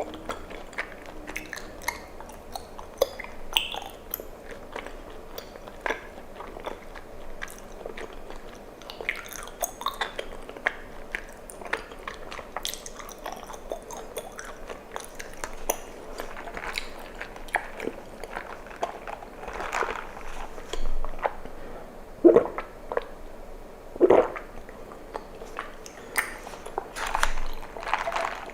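Close-up mouth sounds of chewing chewy tapioca pearls and drinking bubble tea: a steady run of wet, sticky clicks and smacks, with a few louder gulps or pops in the second half.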